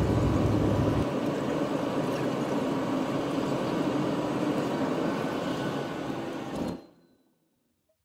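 Airliner cabin noise: a steady rush of engine and airflow noise with a faint hum, its deepest rumble easing about a second in. It cuts off abruptly near the end.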